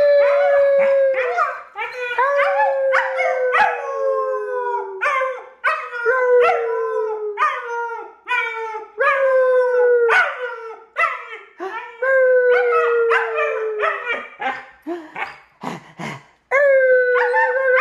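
German Shepherd puppy howling: several long notes that slowly fall in pitch, broken up by many short yips and yelps between them.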